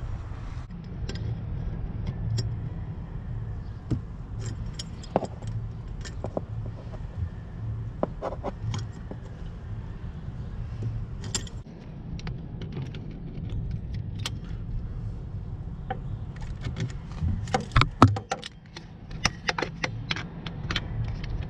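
Metal hand tools clinking against hose fittings as an adjustable wrench and locking pliers work the fittings on a truck engine's air compressor, with a quick run of sharper clinks near the end. A steady low rumble runs underneath.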